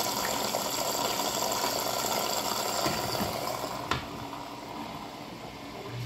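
Philco PLS 12B washer-dryer filling with water: water running in through the detergent dispenser drawer with a steady rushing, and one sharp click about four seconds in.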